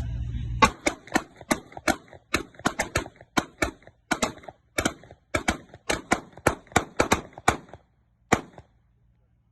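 A long string of gunshots, about three a second at uneven spacing, then one last shot after a short pause.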